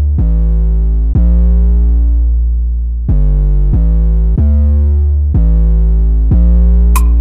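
Background music: sustained synthesizer chords over a deep bass, changing every second or so with no beat, and drum hits coming in near the end.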